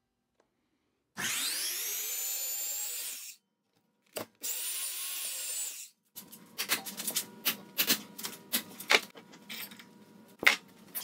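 Bauer portable bandsaw motor spinning up and cutting into rebar held in a bench vise, in two short runs of about two seconds each. Then a string of sharp metal knocks and clanks as the rebar is worked in the vise to bend it, the loudest near the end.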